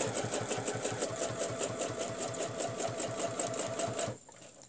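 Domestic sewing machine stitching at a steady speed with a fast, even needle rhythm as fabric is guided along a quilting ruler. The machine stops about four seconds in.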